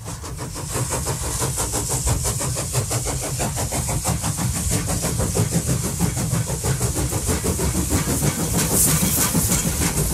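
A train running: a steady low rumble with a fast, even, hissing clatter over it, building up over the first second.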